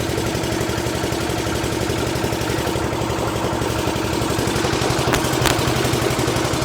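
Engine-driven generator running steadily at a constant speed, a continuous mechanical hum with a couple of faint clicks about five seconds in.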